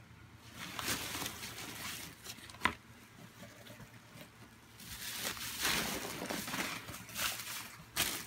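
Foam packing peanuts and plastic wrap rustling and shifting as hands work in a packed shipping box, in two long bouts with one sharp click between them.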